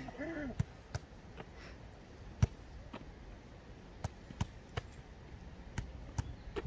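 Football being kicked with the inside of the foot in a one-leg touch drill: a series of short dull thuds of foot on ball, roughly one every half second, irregular, with one louder strike a little before halfway.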